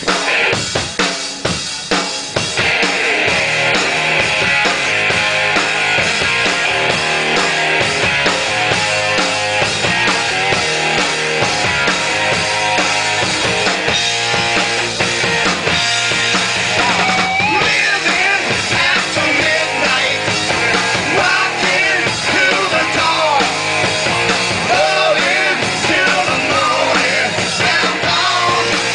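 Live rock band playing: a drum kit alone for the first couple of seconds, then distorted electric guitars and bass come in at full volume. A male singer starts singing a little over halfway through.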